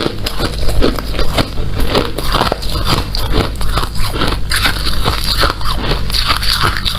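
Hard ice being bitten and chewed close to the microphone: a continuous run of sharp crunches and cracks.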